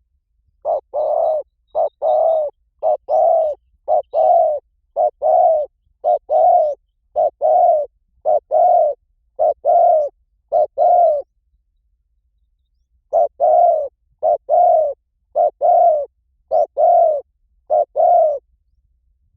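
Spotted dove cooing: a steady series of two-note phrases, a short coo followed by a longer one, repeated about once a second, with one brief pause partway through.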